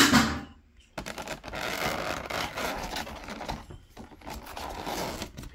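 A loud bump right at the start, then about four and a half seconds of continuous crackling, scraping plastic as the lid of a jumbo instant-ramen tray is handled and pulled off.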